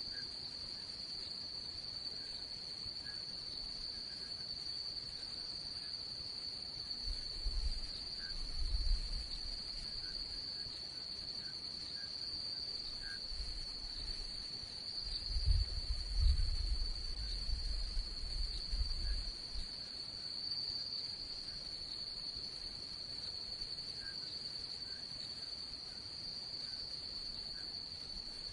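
Crickets trilling in one steady, high, unbroken tone, with two spells of low rumble: a short one about a quarter of the way in and a longer one just past the middle.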